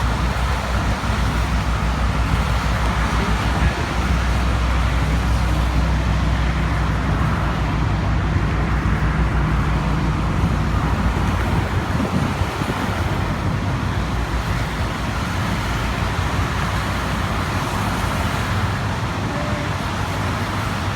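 Steady road traffic noise, with a low engine rumble from passing vehicles that is strongest in the first half.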